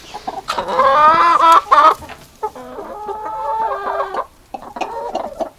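Domestic chickens calling: a loud, drawn-out call about half a second in, then a second, softer drawn-out call about two and a half seconds in.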